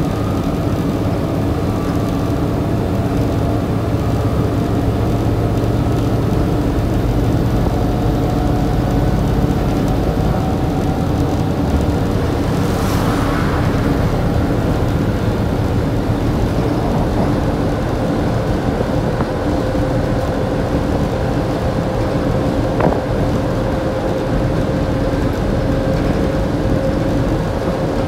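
Lower-deck cabin of a Volvo B7TL double-decker bus on the move: its rear-mounted six-cylinder diesel and drivetrain running steadily with road noise, and a faint whine that climbs slowly in pitch in the second half. A brief hiss comes about halfway through.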